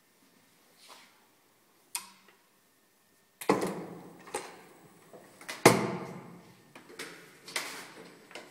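Handling noise from a laboratory gravure printing machine: a couple of small clicks, then from about halfway a series of metal clunks and clatters as its clamping frame and plate carriage are worked by hand. The loudest knock comes a little past the middle, over a low steady hum that starts with the clatter.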